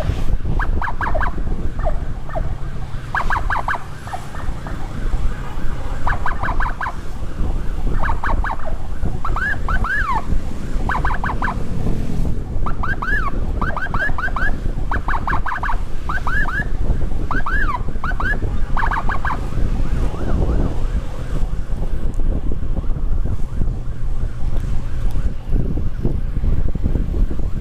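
Electronic emergency siren sounding in short bursts of fast chirping pitch sweeps, repeated every second or two and stopping about two-thirds of the way in. Under it run wind on the microphone and the rumble of a moving motorcycle.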